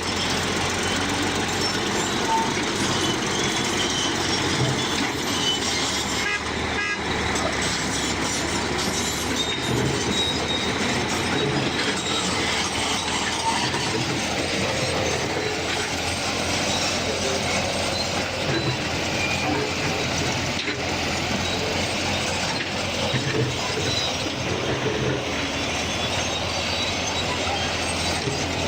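Heavy machinery running steadily: a dense, unbroken engine and mechanical noise.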